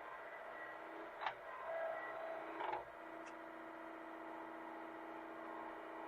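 Hitachi mini excavator's engine running steadily, with two sharp knocks about a second in and again near three seconds, the first the loudest.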